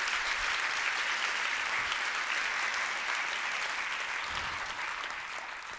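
Conference audience applauding, the clapping thinning and dying away near the end.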